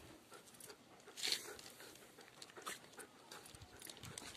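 A dog breathing and panting faintly right at the phone, with one louder breath about a second in.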